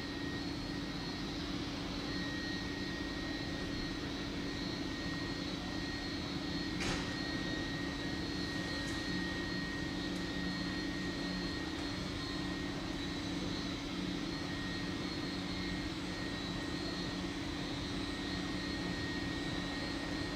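Boeing 757-200's Rolls-Royce RB211 turbofan engines at idle as the airliner taxies slowly in to the gate: a steady whine of several fixed tones over a low hum. A single short click about seven seconds in.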